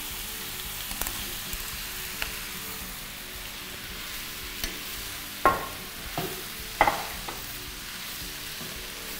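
Cut bell peppers, carrots and onion sizzling in a little oil in a stainless steel wok as they are stir-fried with a wooden spoon. The spoon knocks against the pan now and then, most sharply twice in the second half.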